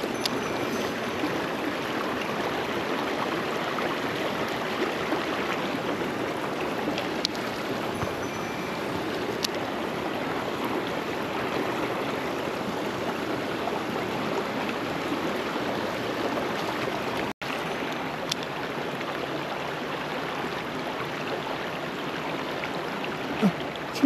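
Mountain stream rushing over rocks, a steady even rush of water that cuts out for an instant about two-thirds of the way through.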